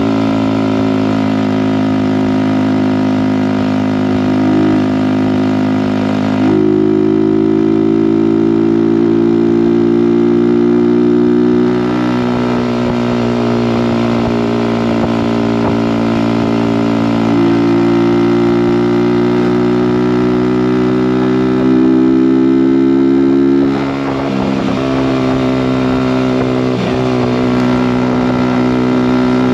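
Kawasaki Z125's 125cc single-cylinder four-stroke engine running through an aftermarket Delkevic exhaust while riding at cruising speed. The engine note steps up in pitch about six seconds in, shifts a few times, then drops with a short dip in loudness about three-quarters of the way through.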